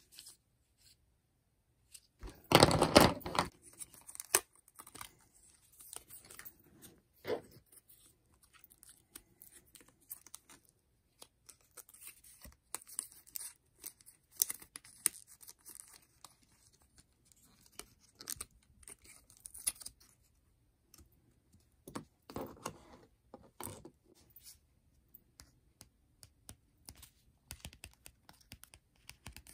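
Close-up handling of paper, stickers and crayons: light rustling, crinkling and small clicks, with a loud burst of paper noise about two and a half seconds in and another around 22 seconds in.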